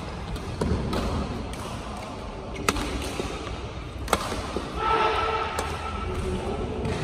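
Badminton rackets striking a shuttlecock in a rally: a series of sharp smacks, the loudest about two and a half and four seconds in. A person's voice calls out, held for over a second, about five seconds in.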